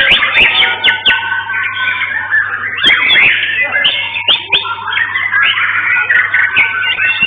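White-rumped shama (murai batu) singing a continuous, varied song of rapid whistled phrases, glides and trills without a break.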